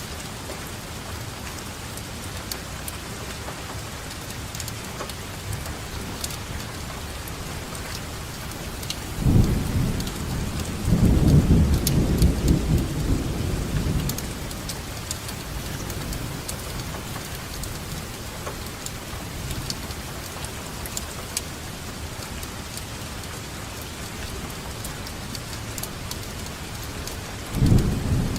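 Steady rain falling, with fine drops pattering, and a rolling thunder rumble that builds about a third of the way in, holds for a few seconds and fades away. A second rumble begins near the end.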